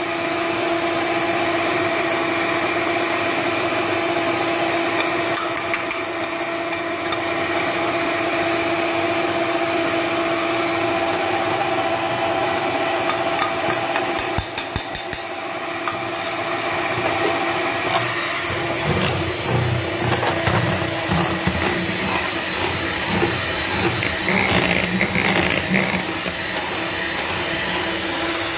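Electric stand mixer running steadily, its beaters whipping cake batter with powdered sugar. A few quick clicks about halfway through, and the sound turns rougher and more uneven in the last third.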